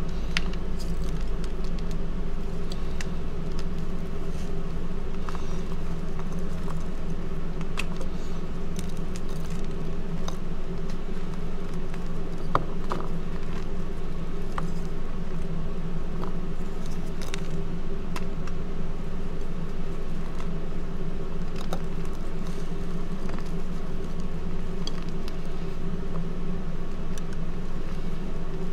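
A hand crushing and squeezing reformed gym chalk blocks into powder. Soft crumbling with scattered crackles and crunches, over a steady low hum.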